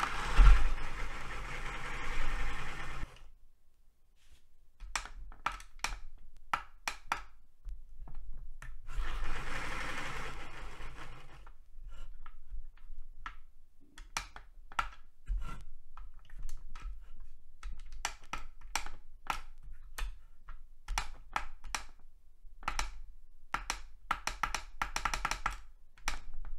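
Battery-powered Singer portable bobbin winder's small motor whirring for about three seconds and stopping, whirring again briefly a few seconds later, then many short clicks as the ON button is pressed again and again. The winder keeps cutting out before the bobbin is full: a fault.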